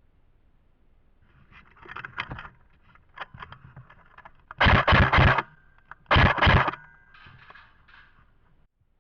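Two short bursts of airsoft gun fire about a second and a half apart, each lasting about half a second, preceded by scuffing and rustling of movement.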